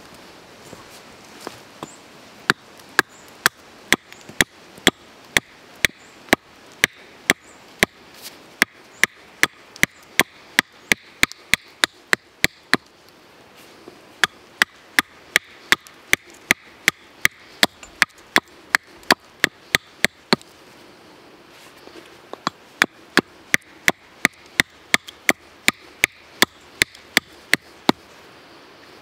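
Hatchet knocking into the top of a wooden stump to split it. There are quick, sharp blows about two a second, in three runs with short pauses between.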